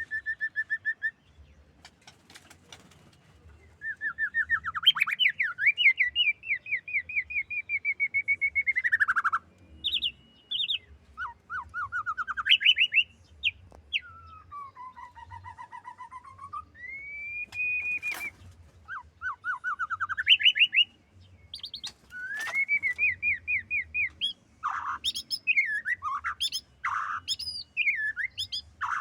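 A female murai songbird calling in a varied series: fast trills of rapid repeated notes, a held whistle, swooping calls and short chattering bursts, with brief pauses between phrases. A few sharp clicks sound among the calls.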